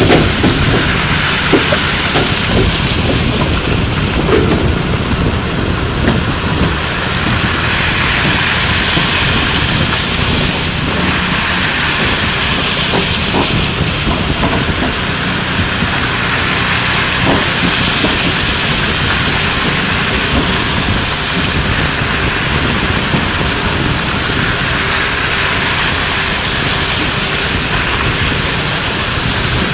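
Road train's many trailer tyres rolling past on a gravel road, a steady loud rush of tyres on gravel with occasional knocks from the trailers loaded with steel rails.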